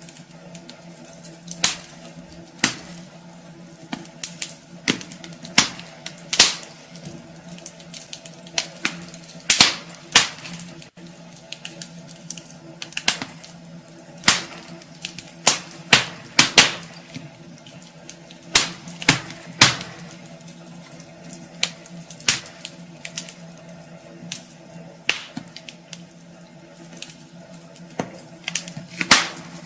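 Wood fire crackling in a fireplace: irregular sharp pops and snaps, roughly one a second, over a faint steady hum.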